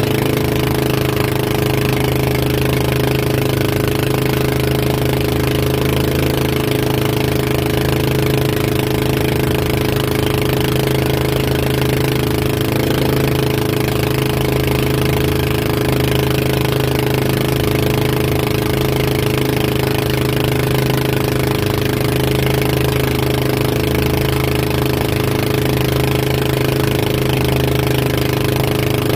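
Towing motorboat's engine running steadily at speed, a constant low hum, over the hiss of rushing water and spray.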